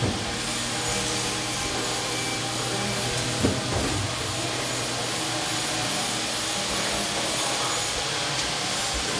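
Steady mechanical noise: an even hiss with a constant low hum running under it, and a brief knock about three and a half seconds in.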